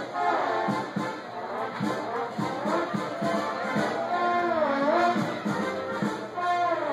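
Music led by brass instruments, with a melody over a steady bass beat of about two notes a second.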